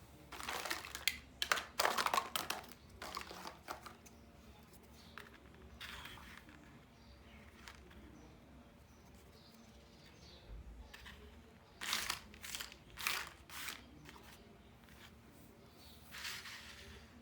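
Plastic toy packaging crinkling as it is handled, in a few short spells with quiet gaps between.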